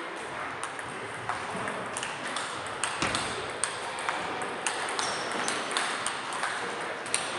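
Table tennis balls clicking off bats and table tops in quick, irregular succession, from rallies at several tables at once.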